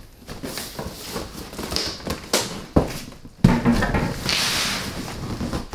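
A large cardboard box wrapped in plastic being handled and lifted: scattered rustling, crinkling and knocking, with a thump about three and a half seconds in followed by a stretch of crackly scraping.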